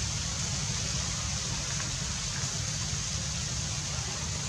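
Steady outdoor background noise: a constant hiss over a low rumble, with no distinct event standing out.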